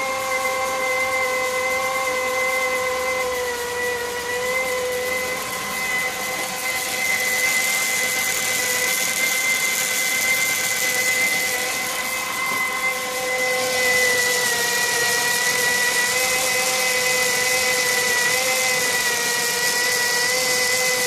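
E-bike kit motor running at a steady speed on a Lyen 12FET controller limited to 450 W, giving a whine of several steady high tones. This is the motor noise that the controller produces. A hiss grows louder about seven seconds in and again about thirteen seconds in.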